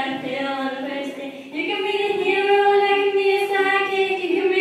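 Girls singing, with a long held note starting about a third of the way in.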